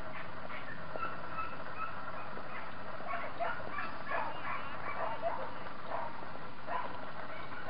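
Dogs barking and yipping, with short barks coming fast in the middle and a few more near the end.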